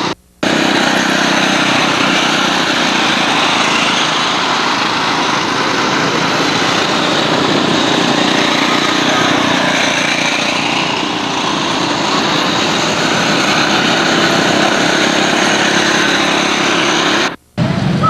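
A small engine running steadily. The sound drops out briefly just after the start and again near the end, where the recording cuts.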